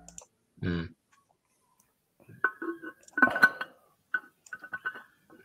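Computer mouse clicks and keyboard taps, scattered and irregular, picked up by a video-call microphone. Under a second in there is one brief low vocal grunt.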